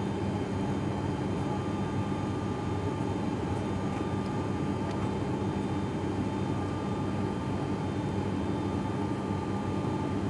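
Steady cabin drone of an ATR 72-500's two Pratt & Whitney PW127 turboprop engines and propellers, heard inside the passenger cabin as the aircraft climbs after takeoff. A constant low hum with a faint steady higher tone over it.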